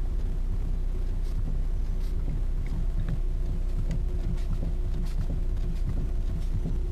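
Hyundai Elantra steering knocking as the wheel is turned with the car standing still: faint, irregular knocks over a steady low hum, with a faint steady whine joining about four seconds in. The owner suspects the steering rack, since a new intermediate shaft and U-joints did not cure the knock.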